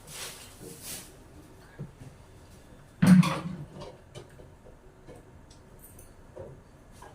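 Kitchenware clatter: one loud clunk of a dish or pot being set down about three seconds in, ringing out briefly, with brief swishes near the start and light taps and clicks around it.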